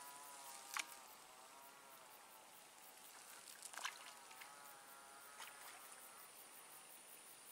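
Faint insect sounds: the wavering buzz of a flying insect passing near and away, over a steady high-pitched insect trill, with two small clicks about a second in and near the middle.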